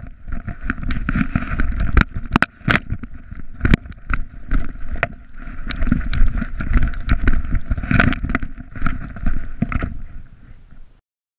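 Handling noise from a GoPro strapped to a running Rhodesian Ridgeback's harness: a dense run of sharp knocks and rattles from the camera mount as the dog moves, over a low buffeting rumble. It cuts off abruptly shortly before the end.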